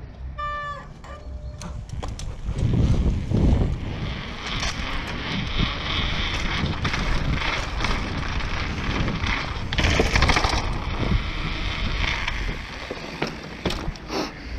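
Mountain bike ridden over paving slabs and cobblestones: the tyres rumble and the bike rattles, with frequent sharp knocks over the bumps. It gets going about two seconds in.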